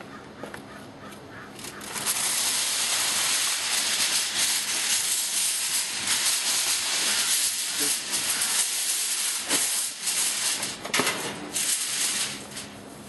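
Heavy-duty aluminum foil being pulled off the roll and crumpled as it is spread out, a loud crinkling rustle. It starts suddenly about two seconds in and stops a couple of seconds before the end, with a few sharp crackles as it is torn and smoothed down.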